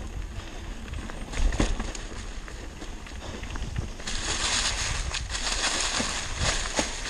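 Mountain bike running down a rough dirt trail: tyres rolling over dirt and dry leaves, with irregular knocks and rattles from the bike. About four seconds in, a louder steady hiss sets in.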